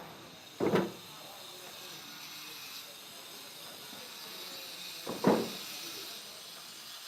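Steady hiss with two short thumps, one near the start and one about five seconds in.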